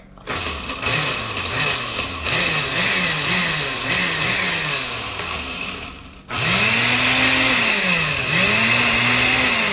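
Countertop blender with a glass jar running, chopping roasted chilies, its motor pitch wavering up and down under the load. It stops briefly about six seconds in, then starts again, its pitch rising, dipping once and rising again.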